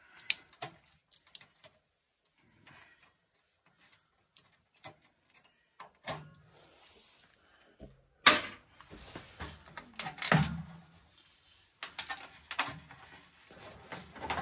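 Clicks, knocks and clunks of hands working inside a sheet-metal equipment chassis, pulling wires and connectors out. Light scattered ticks at first, then louder metallic clunks from about the middle, the heaviest with a dull thud.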